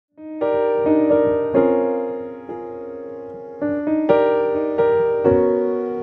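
Keyboard intro of a song: piano-toned chords struck one after another, each ringing and slowly fading before the next.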